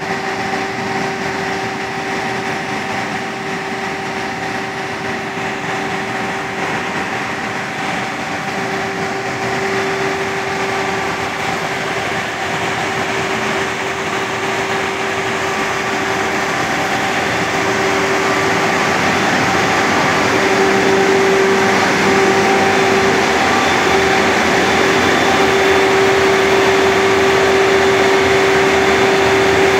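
Grain drier running while drying wheat: a steady machinery drone with a strong held hum, slowly getting louder.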